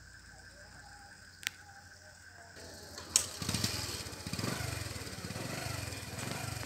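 Night-time outdoor ambience: at first a faint steady insect trill with a single click, then, from about three seconds in after a sharp click, louder mixed background noise with indistinct voices.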